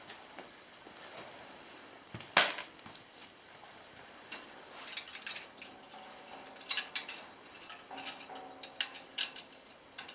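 Scattered sharp clinks and knocks of hard objects being handled: one loud knock about two seconds in, then a quick cluster of clinks and two more near the end, with a faint ringing between them.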